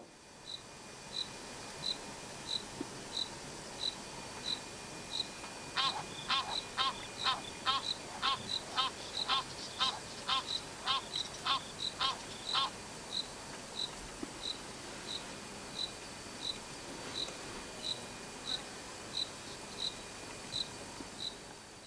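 Insect chirping: short, high chirps repeat evenly, about one and a half a second, over a steady hiss of outdoor background. About six seconds in, a second, louder series of fuller chirps joins at about three a second and stops about seven seconds later.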